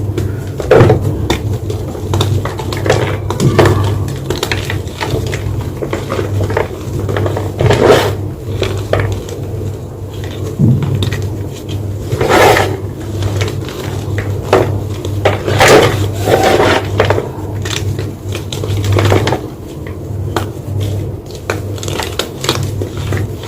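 White gym chalk block crunching and crumbling close to the microphone: irregular crunches with a few louder cracks, over a steady low hum.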